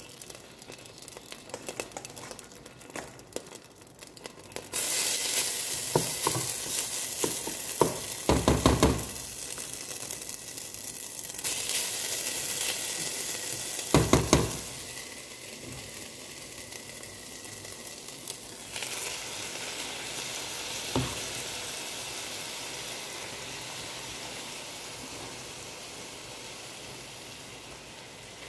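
A hot pan sizzling as wet, half-cooked basmati rice goes into it. The sizzle starts suddenly about five seconds in and slowly dies down toward the end, with a few loud knocks against the pan around eight and fourteen seconds.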